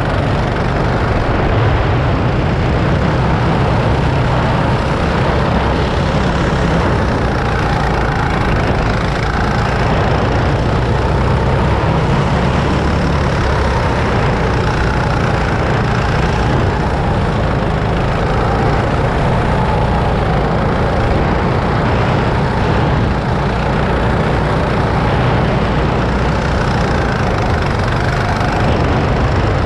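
Rental go-kart engine running steadily at speed, heard from the driver's seat, its pitch rising and falling a little with the throttle.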